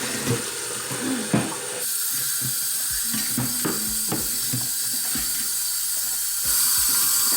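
Kitchen sink tap running while dishes are washed by hand, with dishes and cutlery clinking and knocking. The water comes on about two seconds in and runs harder about six and a half seconds in.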